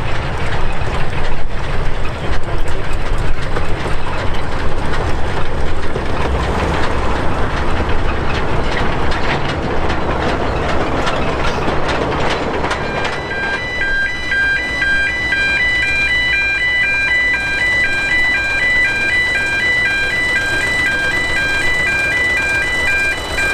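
Small narrow-gauge steam locomotives and their train running past, with exhaust and wheels rumbling over the rails. After about 13 seconds this gives way to a repetitive electronic chime tune of short high notes.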